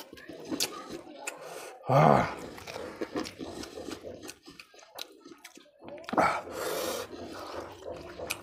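Close-miked mouth sounds of a man eating rice and fish curry with his fingers: wet chewing and lip smacks. A loud, short throaty sound comes about two seconds in, and another loud mouth noise just after six seconds.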